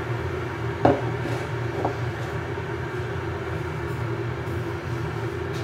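Glass electric kettle heating water, a steady low rushing noise as it works toward the boil. Two light clinks of a china mug being handled, about one and two seconds in.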